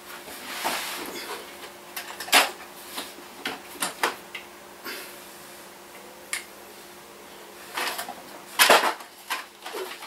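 Someone rummaging among storage boxes: scattered knocks, clicks and short rustles, with a louder clatter near the end, over a faint steady hum.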